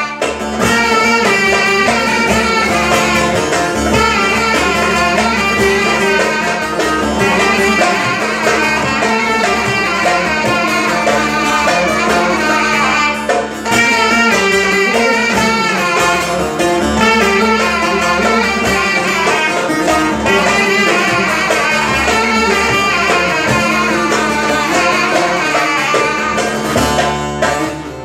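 Instrumental break of a Turkish folk song: bağlama and violin playing the melody with a wind instrument, over a darbuka rhythm.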